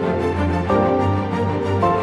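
Background music: held chords over a steady low bass, with the chord changing about a second in and again near the end.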